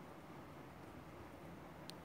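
Near silence: faint steady room hum and hiss, with one faint click near the end.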